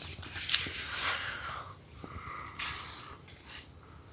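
Crickets chirping in a steady, evenly pulsed trill, with a couple of brief rustling or scraping noises over it.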